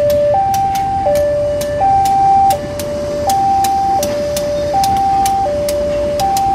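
Level crossing warning alarm sounding two alternating tones, high and low, each held about three quarters of a second. Under it runs the low rumble of a CC 201 diesel-electric locomotive rolling slowly across, with irregular sharp clacks from its wheels on the rails.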